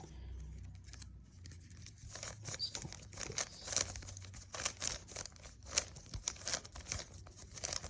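Plastic 3x3 Rubik's cube being turned and handled: quick irregular clicks and rattles of the layers turning, starting about two seconds in.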